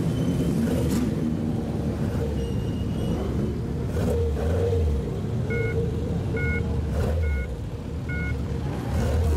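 Engines and exhausts of lowered cars rumbling as they creep past at low speed, swelling louder a few times. In the second half, four short two-tone beeps come about a second apart.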